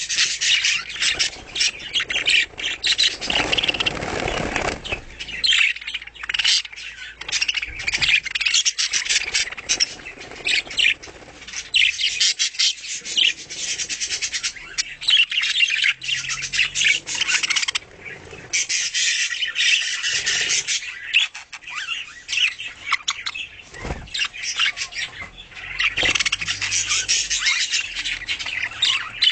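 A group of budgerigars chattering and squawking: a dense, continuous stream of rapid chirps, clicks and warbles.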